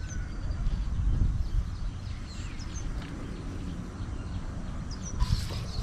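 Outdoor ambience: a steady low rumble of wind on the microphone, with a few faint bird chirps. A brighter hiss comes in near the end.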